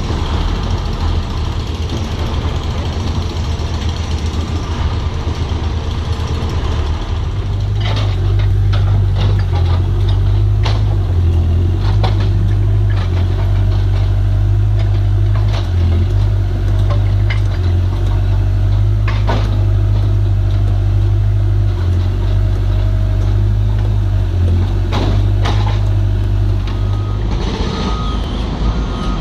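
Heavy construction machine's diesel engine running steadily, louder from about a quarter of the way in, with scattered sharp knocks. Near the end a reversing alarm starts beeping.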